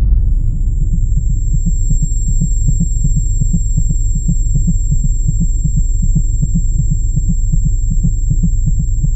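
A loud, deep pulsing drone, about five pulses a second, with a thin steady high tone above it: a dramatic sound effect laid over the footage.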